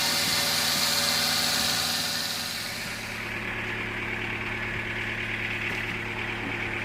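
Band sawmill cutting teak with a loud, high hiss. The sawing noise fades out about two and a half seconds in, leaving the mill's motor running steadily with a low hum.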